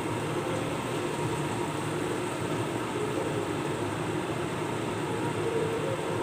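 Sweet potato slices frying in oil in a frying pan, a steady sizzling rush at an even level.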